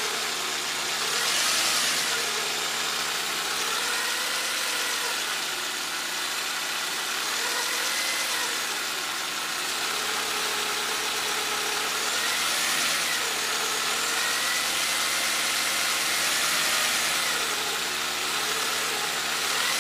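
1992 Toyota Camry engine running with a loud whine whose pitch rises and falls with the revs, the engine being brought up and let back down every few seconds. The whine comes from an over-tensioned timing belt.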